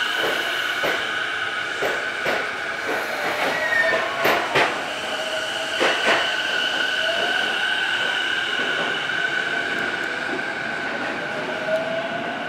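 Electric train accelerating away under a Mitsubishi two-level IGBT VVVF inverter. Its motor whine rises in pitch over steady high tones, and sharp clacks from the wheels come loudest about four to six seconds in.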